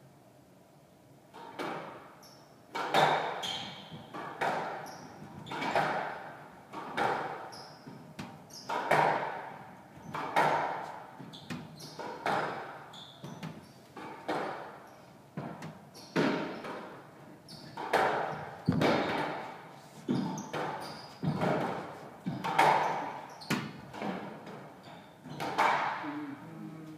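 Squash rally: the rubber ball struck by rackets and rebounding off the court walls in sharp, echoing knocks about once a second, starting about a second and a half in and stopping near the end.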